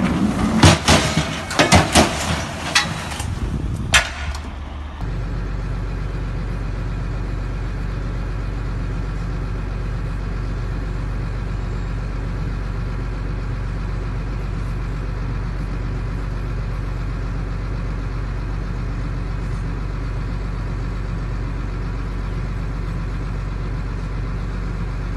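Several sharp knocks and clattering in the first few seconds. About five seconds in, the sound switches abruptly to a vehicle engine running at a steady low drone.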